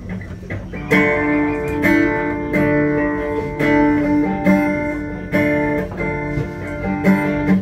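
Acoustic guitar strummed in a steady chord pattern. It starts about a second in, and each stroke rings on into the next.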